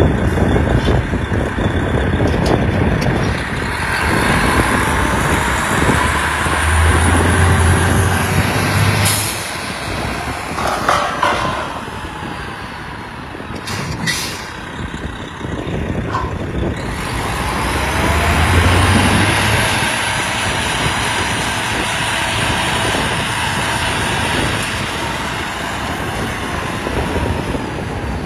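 The 2007 Cameron 475 hp workover rig's diesel engine running, revved up and let back down twice. A couple of sharp clicks come in the quieter stretch between the revs.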